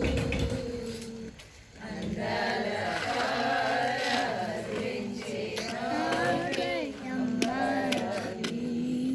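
A group of voices singing together, with a brief break about a second and a half in before the singing resumes.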